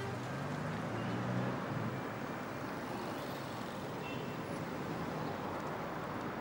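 Road traffic noise: a steady wash of passing vehicles, with a low engine hum near the start.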